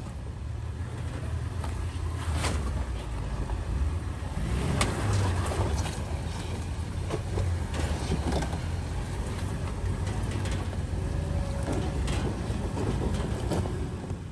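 Toyota 4Runner's 4.0-litre V6 running low and steady while crawling over rough off-road ground, a little louder about five seconds in. Scattered knocks and clunks come from the vehicle working over the uneven trail.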